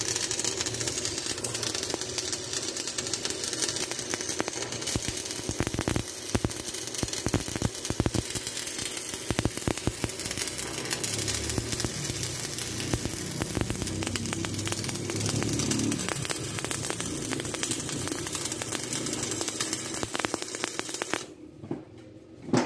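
Stick-welding arc crackling and sizzling steadily as a welding rod burns, then cutting off abruptly about 21 seconds in when the arc is broken.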